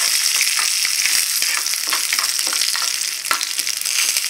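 Curry leaves and spices frying in hot oil in a small pan, a steady sizzle as a tadka cooks, stirred with a metal spoon. Scattered sharp clicks run through the sizzle.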